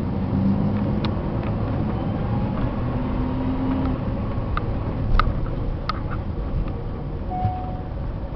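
Cab interior noise of a 1994 GMC 3500 box truck on the move: a steady engine and road rumble, with a scatter of sharp clicks and rattles.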